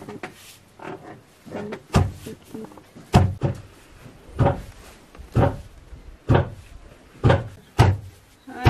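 Foot-operated wooden rice pounder (dhenki) pounding grain: the heavy beam's pestle head drops into the grain pit with a dull wooden thud about once a second, in a steady rhythm.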